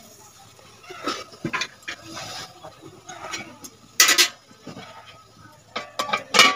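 Metal cookware being handled: light knocks as taro leaves are laid into a small metal kadai, a loud clatter about four seconds in, and a steel plate clanking down over the kadai as a lid near the end.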